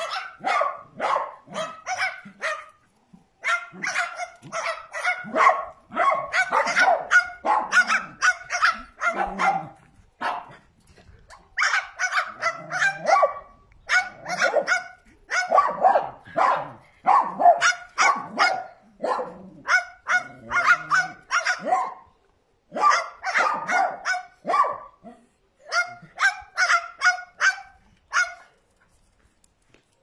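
Small dogs barking excitedly: rapid, repeated high yaps, about two a second, in runs broken by short pauses, dying away near the end.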